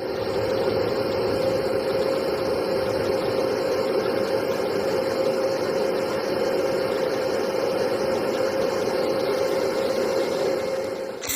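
A machine running steadily, with a strong hum over a hiss, that starts suddenly and cuts off just before the end.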